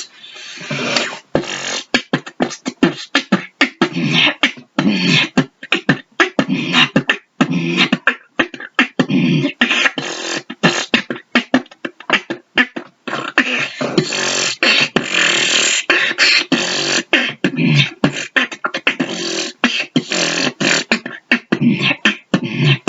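A person beatboxing: a fast, continuous run of percussive mouth sounds mixed with longer hissing stretches.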